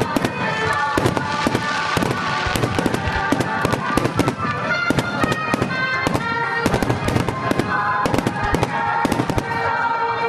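Fireworks display: aerial shells bursting in a rapid, continuous barrage of sharp reports, several a second, over music with steady held notes.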